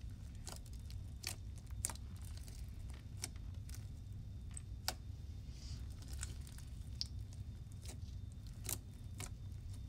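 Bead-filled slime being kneaded and squeezed by hand as lotion is worked in, giving about a dozen irregular sharp clicks and pops over a steady low hum.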